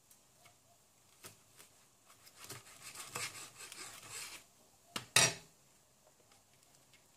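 Kitchen knife sawing through a crisp grilled sandwich on a plastic cutting board, a rough crunching scrape for about two seconds, then one sharp knock about five seconds in.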